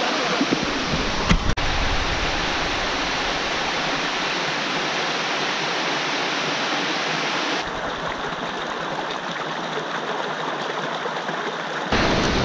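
Creek water rushing and splashing down small rock cascades in a steady, even rush. The sound shifts abruptly about eight seconds in and again near the end, where it is loudest.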